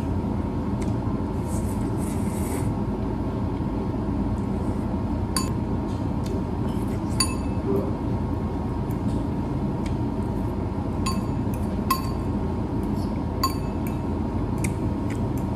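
A metal fork clinks and scrapes against a ceramic bowl while noodles are eaten, with irregular sharp ringing clinks, the clearest in the second half. A steady hum runs underneath.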